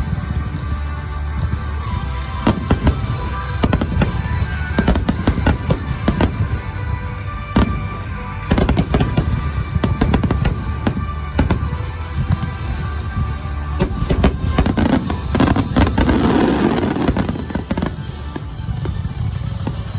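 Starmine fireworks finale: a rapid barrage of aerial shells bursting, many sharp bangs and crackles over a continuous low rumble, with music playing along.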